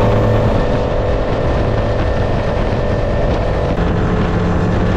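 Suzuki four-stroke outboard running steadily at cruising speed, over a steady rush of water from the hull and wake.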